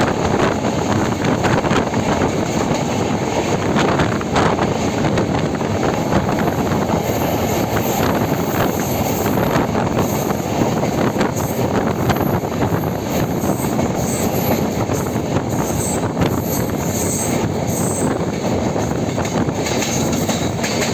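Janshatabdi Express passenger train running at speed: a loud, steady rumble of wheels on rails.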